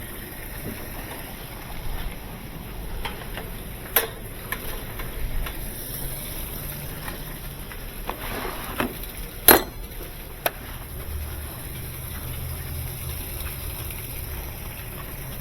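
Direct-drive Whirlpool-built washing machine running on a test cycle after a motor coupling replacement: a low steady hum, with a few sharp clicks and knocks, the loudest about nine and a half seconds in.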